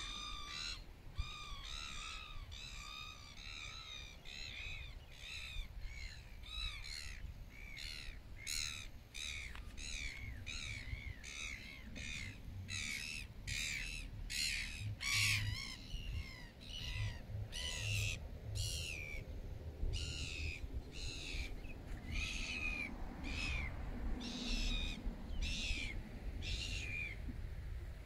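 A bird calling over and over, a long run of harsh calls that rise and fall, roughly two a second, stopping shortly before the end. A low rumble runs underneath.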